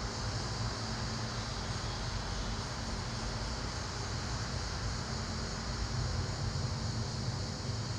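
Steady low rumble and hiss with a faint hum, with no distinct events.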